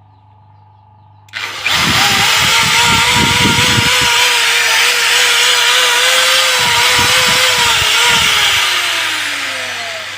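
An electric motor starting up about a second in and running with a wavering whine and some low knocking, then winding down near the end with a falling whine that fades out.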